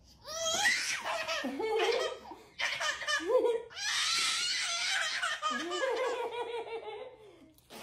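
Baby laughing hard in three long bouts, the last and longest dying away near the end.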